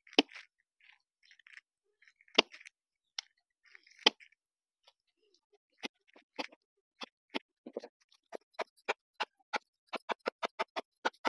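Sharp clicks and cracks as a wooden stick is driven and levered into a whole unripe jackfruit to split its rind. A few single cracks at first, then from about halfway a steady run of clicks that quickens to about four a second.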